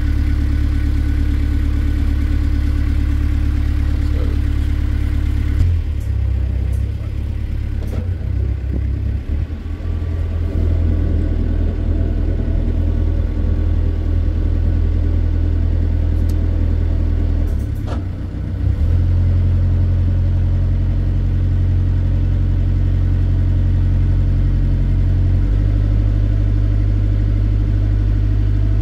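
A small water-taxi boat's engine running steadily, heard from on board. Its note steps up and down several times as the throttle changes while the boat pulls away and cruises across the dock, with a few short clicks along the way.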